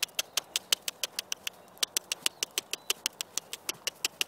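A person clicking the tongue rapidly to urge a trotting horse on: an even run of sharp clicks, about six a second, with a brief break about a second and a half in.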